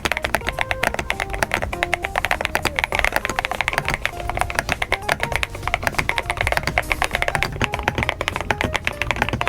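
Fast, continuous typing on an AKKO mechanical keyboard, keys clacking in quick runs, with a faint stepping melody underneath.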